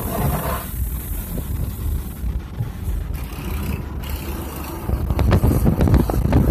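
Car driving, heard from inside the cabin: a steady low rumble of road and engine noise. It grows louder and gustier in the last second and a half.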